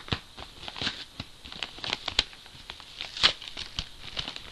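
A shipping package being opened by hand: irregular crinkling, rustling and tearing of the packaging, with a louder sharp rip about three seconds in.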